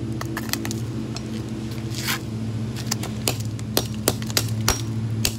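Irregular sharp clicks and clinks of a smashed iPhone 6's broken glass, metal and plastic parts being worked apart, coming more often in the second half, over a steady low hum.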